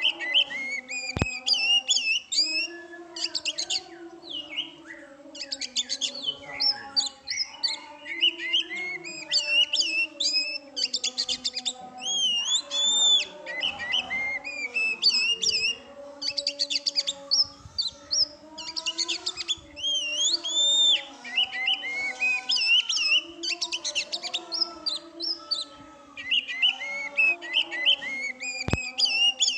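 Oriental magpie-robin singing in full song: a long, varied stream of loud whistles, sweeping notes and fast trills, phrase after phrase with only short pauses.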